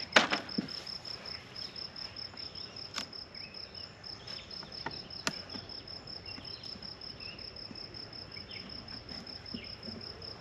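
An insect chirping steadily in a high-pitched, evenly pulsed rhythm of several pulses a second. A few sharp knocks cut in, the loudest right at the start.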